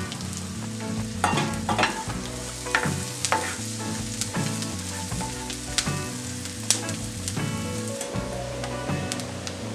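Diced onion sizzling in hot oil in a nonstick frying pan, stirred with a spatula that scrapes and taps against the pan a number of times.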